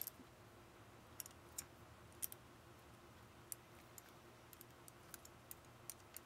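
Faint, irregular light clicks of a hand tool working a hose clamp on a radiator hose, over a faint steady low hum.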